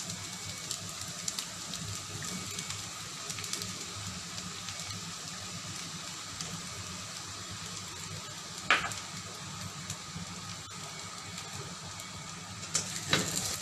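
Fried rice sizzling in a hot pan as beaten egg is poured over it: a steady frying hiss with scattered small crackles. One short sharp sound stands out about nine seconds in.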